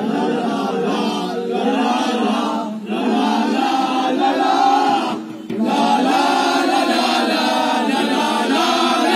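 Several voices singing a song together in long held phrases, with a few short breaks between the phrases.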